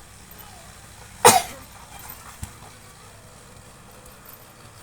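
A person coughs once, a single short, sharp burst about a second in.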